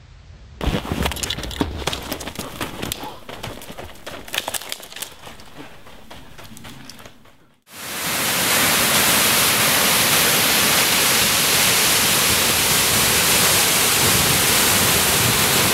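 Irregular crackling clicks that fade away, a moment of silence, then from about halfway the loud, steady rush of a large waterfall close by.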